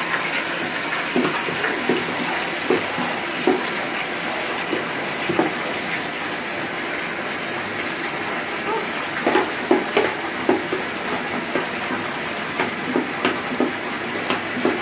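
Bath tap running hard into a filling tub, a steady rush of water. Short irregular squirts and splashes come in bunches as dishwashing liquid is squeezed into the stream to make bubbles.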